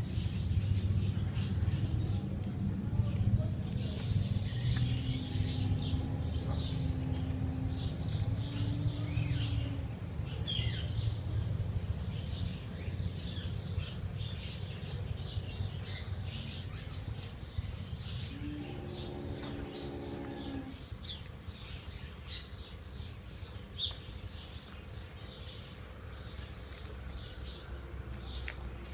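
Many birds chirping continuously in quick, high calls over a steady low rumble, with a brief pitched tone about two-thirds of the way through.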